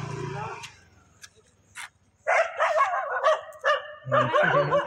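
A dog yelping and barking in a rapid run of short, high-pitched calls, about three or four a second, starting about two seconds in after a quiet stretch.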